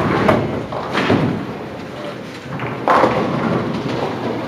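Bowling alley noise: a few heavy thuds and clatters from bowling balls and pins, the loudest about three seconds in and ringing briefly.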